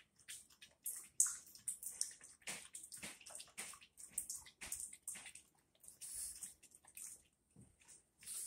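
A small dog lapping water from a bowl in quick, uneven splashy laps, a few a second, pausing shortly before the end.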